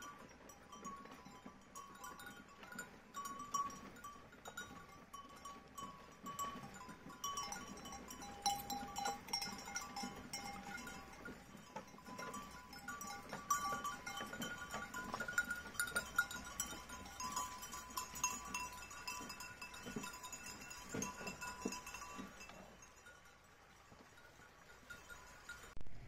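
Several goats bleating again and again over the steady rush of a shallow stream, the calls dying away in the last few seconds.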